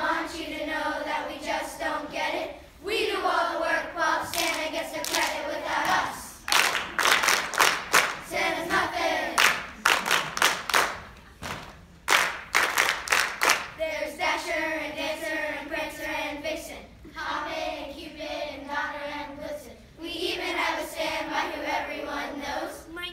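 Children's choir singing a song together on stage. About six seconds in, the singing gives way to a run of rhythmic hand clapping by the choir, and the singing picks up again at about fourteen seconds.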